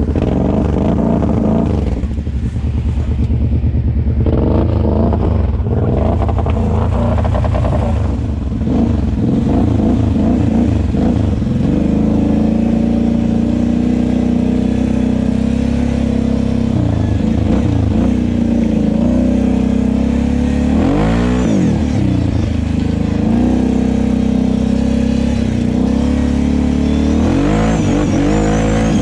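Kawasaki KFX 700 ATV's V-twin engine running and being revved up and down under load while ridden through thick mud. Near three-quarters of the way through, the revs fall off sharply and climb straight back up.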